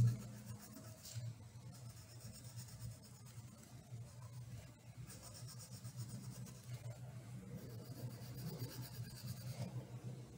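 A wax crayon shading on paper in rapid back-and-forth strokes, faint and scratchy.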